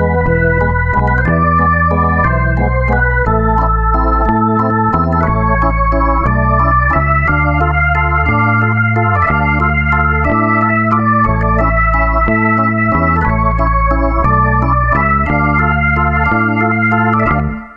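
Background keyboard music of sustained organ chords that change about once a second over a deep bass line, fading out right at the end.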